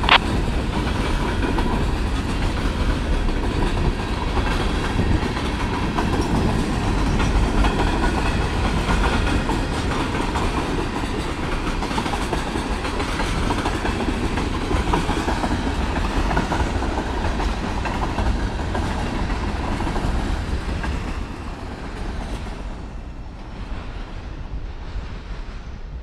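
Freight train cars, covered hoppers and tank cars, rolling past with steady wheel-on-rail noise that fades over the last few seconds as the end of the train goes by.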